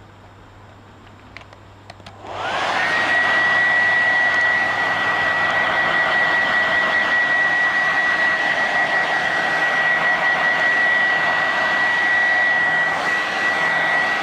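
Hand-held hair dryer switched on about two seconds in, its fan spinning up with a briefly rising whine, then blowing steadily: a loud rush of air with one steady high whine on top.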